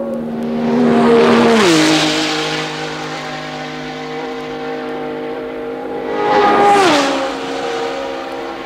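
Two 1960s Formula One cars passing at full speed in top gear, around 180 mph. Each engine note swells and then falls sharply in pitch as the car goes by, the first about a second and a half in and the second near seven seconds, with a steady engine drone in between.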